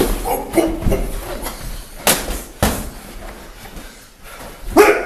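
Boxing gloves landing during sparring: a few sharp thumps, the two loudest about two seconds in and half a second apart.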